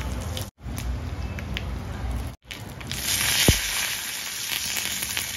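Hot oil tempering of mustard seeds, urad dal and dry red chillies sizzling in a small iron pan, broken by two brief cuts. About three seconds in, curry leaves go into the oil and the sizzle grows much louder.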